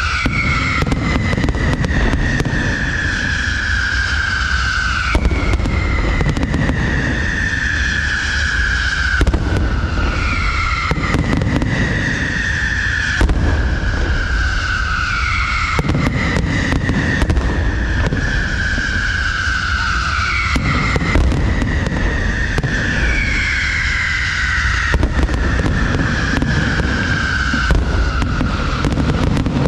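Aerial fireworks display: a steady low rumble of shell bursts with many sharp cracks. A whistling tone slides down in pitch over several seconds and starts again every few seconds.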